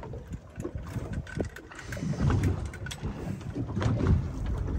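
Wind buffeting the microphone on an open boat at sea, a low uneven rumble that grows stronger about two seconds in, with a few light knocks.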